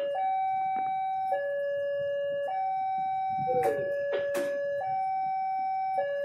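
Level-crossing warning alarm sounding a two-tone 'ding-dong', alternating a higher and a lower tone about every second, which signals that a train is approaching the crossing. A few sharp knocks sound about four seconds in.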